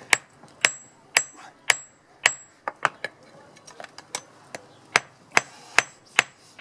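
Hand hammer forging a steel bodkin arrowhead on a steel block: sharp ringing metal-on-metal blows, about two a second, with a few lighter, quicker taps in the middle.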